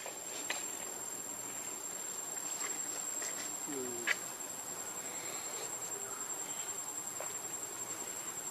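Insects droning steadily at a high pitch, with a few faint clicks and one sharper click about four seconds in.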